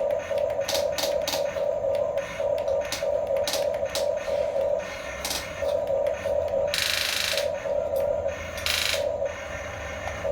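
Small electric motors and gears of a Huina 1569 radio-controlled bulldozer whining in short on-off spurts, with scattered clicks and two brief hissing bursts about seven and nine seconds in.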